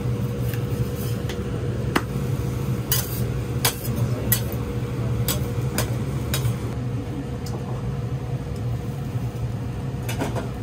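Metal spatulas clacking and scraping on a steel teppan griddle as an okonomiyaki is worked. The clacks come in a run of about seven sharp strikes between two and six and a half seconds in, with a couple more near the end, over a steady low hum.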